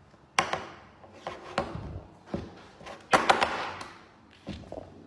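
Vegetable peeler scraping skin off a cucumber in about five separate short strokes, each starting sharply, the loudest about three seconds in.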